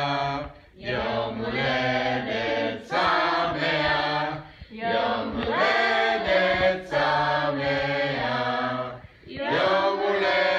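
Several people singing together without accompaniment, men's and women's voices, in phrases of a few seconds with short breaks between.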